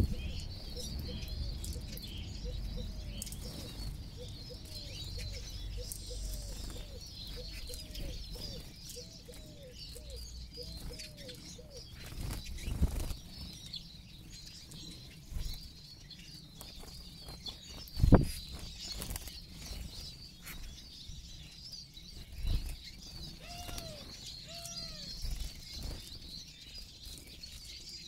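A flock of Eurasian siskins at seed feeders: constant high twittering, with wing flutters close by and a few sharp thumps as birds take off and land. A run of lower, quickly repeated call notes sounds through the first half and again briefly near the end.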